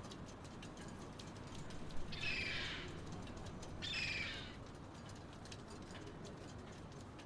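A bird calls twice, each call under a second, about two seconds in and again about four seconds in, over a steady low background noise.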